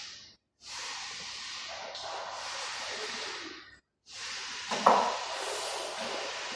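Steady hiss that drops out twice for a moment, with a single sharp metallic clank near the end as the hoist chain knocks against the engine while it is being hooked on.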